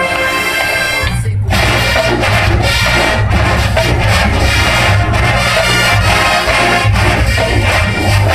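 College marching band playing: a held brass chord cuts off about a second in, then the full band of brass and drums comes back in on a steady beat.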